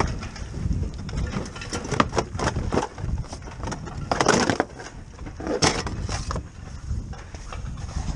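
Hands working on a car's front brake disc and strut: scattered clicks and knocks of metal parts, with rustling of a waterproof jacket close to the microphone, loudest twice around the middle, over a low wind rumble.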